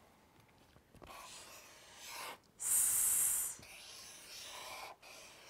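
Marker pen scratching across flip-chart paper as a word is written by hand. About two and a half seconds in, a drawn-out high 'sss' hiss lasting about a second is the loudest sound.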